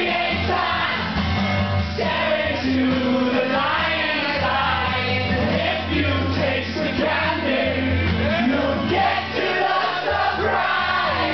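A man singing into a microphone while strumming an acoustic guitar, a live solo acoustic performance.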